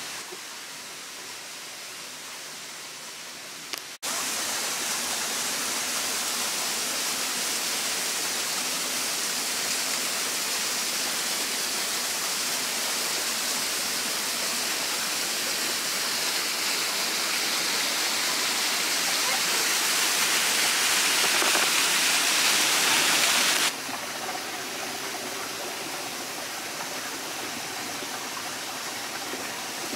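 Steady rush of water pouring down the Salto Atalaya waterfall. It turns abruptly louder about four seconds in, swells a little further, and drops back abruptly about three-quarters of the way through.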